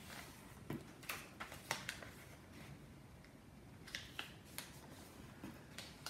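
A circle of brown envelope paper being folded into quarters and creased flat by hand: faint, scattered crackles of stiff paper bending and pressing.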